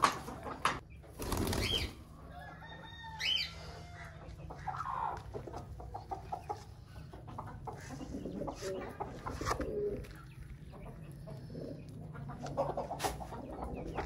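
Pigeons and chickens: a short burst of wing flapping about a second in, then scattered chirps and clucks.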